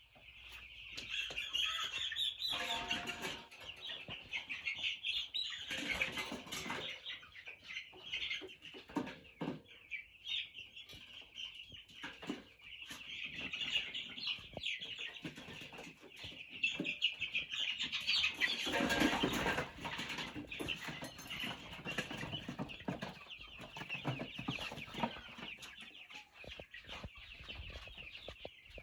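A flock of two-week-old chicks peeping continuously, with several louder bursts of wing flapping and scuffling, the biggest about two-thirds of the way through.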